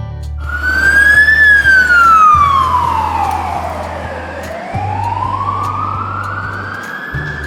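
Wailing emergency-vehicle siren sound effect: one long tone that starts about half a second in, rises briefly, falls slowly for about three seconds, then rises again. Low steady notes that change every couple of seconds run underneath.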